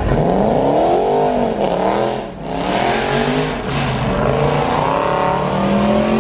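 Car engine revving hard several times, its pitch climbing and falling back with each blip of the throttle, then holding high near the end.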